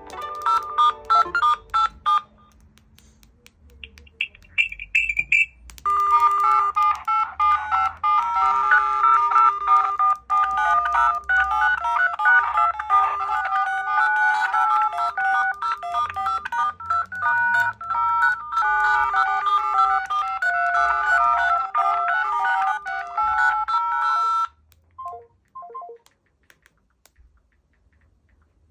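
Smartphone incoming-call ringtones. One melody ends about two seconds in and a short high chime follows. Then a long electronic melody of quick notes plays and stops suddenly, with a few short notes after it.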